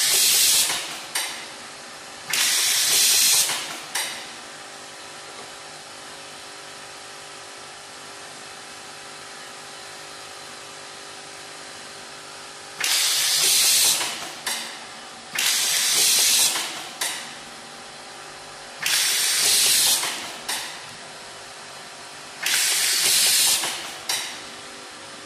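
Automatic cable-tie tying machine binding nylon ties around a motor stator's coil: six tie cycles, each a hiss of about a second with one or two short puffs after it. Beneath them runs the steady hum of the vibrating bowl that feeds the ties.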